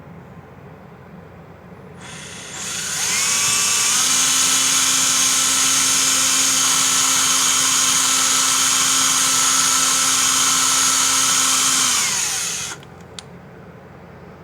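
DeWalt DW990K2 XRP 14.4 V cordless drill/driver drilling into the wall: the motor spins up over a couple of seconds, runs with a steady whine for about eight seconds, then winds down and stops.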